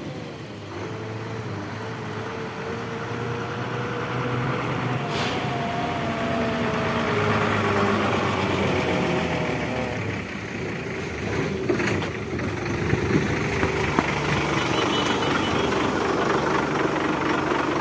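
Truck engine running, a steady low drone with a slowly shifting whine that grows louder over the first several seconds. Two brief sharp clicks come about five and twelve seconds in.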